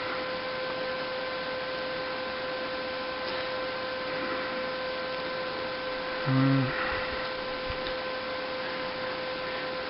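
A steady electrical whine, pitched around 500 Hz with fainter higher overtones, sits over a constant hiss. A little past halfway a person gives a brief low hum.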